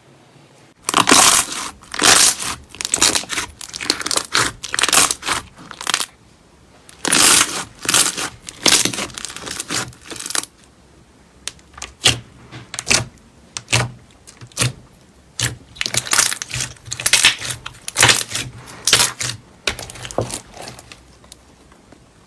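Slime being squeezed and poked by hand, giving irregular squishes, crackles and sharp clicks, some in quick runs.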